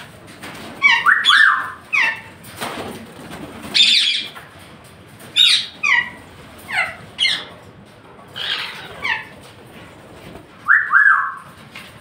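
Parrots squawking: a string of about ten short, harsh calls, most of them sliding down in pitch, coming every second or so with brief gaps between.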